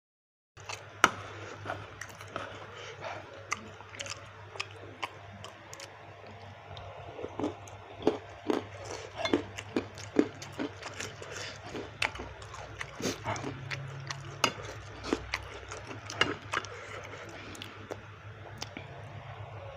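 Close-miked eating of chewy baso aci (tapioca meatballs): irregular wet mouth smacks and clicks of chewing, starting about half a second in, over a steady low hum.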